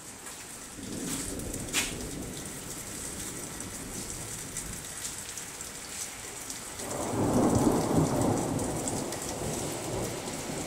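Steady rain with drops ticking on a nearby surface, and rolling thunder from a passing storm: a low rumble about a second in, then a louder roll of thunder from about seven seconds in that fades over the next few seconds.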